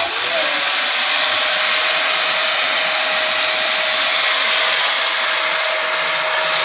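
Electric angle grinder with a sanding disc switched on, its whine rising to speed in the first half second, then running steadily while sanding a lemon-tree branch.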